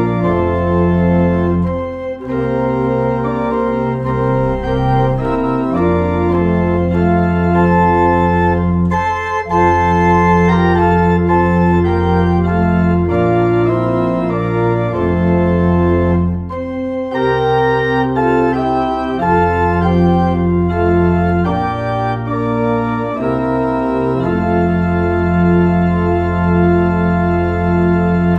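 Organ music: slow, held chords over a bass line that moves every second or two.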